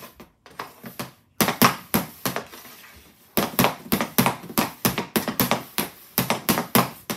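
Quick, repeated clacks of a hockey stick blade knocking a puck from side to side on a plastic shooting pad in fast stickhandling, about three to four taps a second, with a short lull a couple of seconds in.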